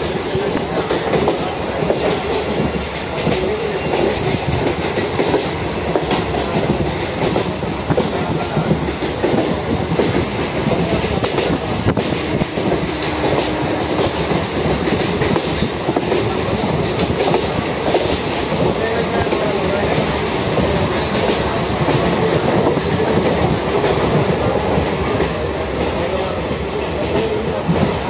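Passenger train running along the track, heard from on board a coach: a steady loud rumble of wheels and rails with many quick clicks running through it.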